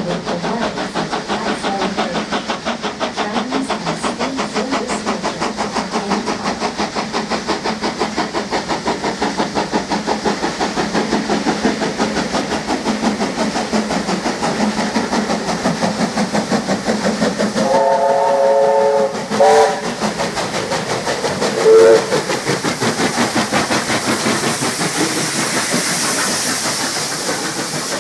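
Two steam locomotives, NSW 35-class 4-6-0 No. 3526 leading 59-class 2-8-2 No. 5917, working hard up a grade with rapid exhaust beats and hissing steam. About two-thirds of the way through a steam whistle sounds a longer blast and a short one, then another short blast a couple of seconds later.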